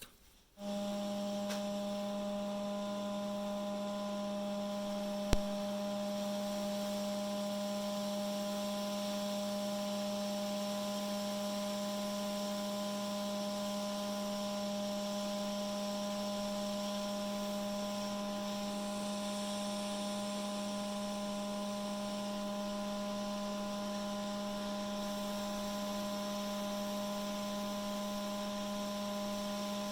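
Steady electrical hum at a fixed pitch, starting abruptly about half a second in, with one sharp click about five seconds in.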